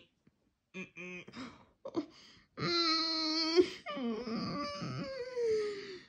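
A cartoon dog's voice hiccupping a few times, then letting out a long moaning wail that holds one pitch for about a second and then wavers and slides down. It is played back through a screen's speaker.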